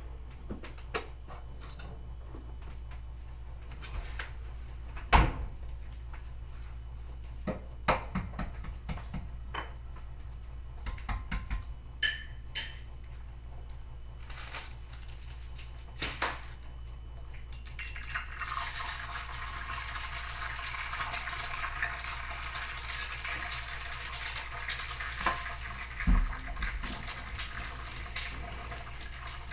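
Scattered knocks and taps of handling at the pan, then about two-thirds of the way through an egg hits hot oil in a Sori Yanagi cast iron frying pan and sizzles steadily, with one dull knock near the end.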